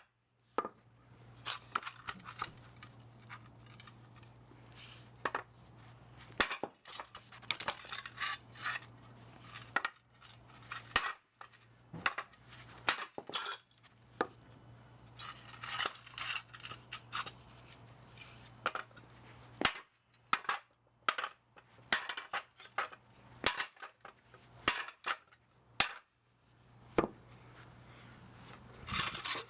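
Hand tools working on the metal parts of a scrapped electric motor: irregular metallic clicks, clinks and taps, some sharp and loud, over a steady low hum.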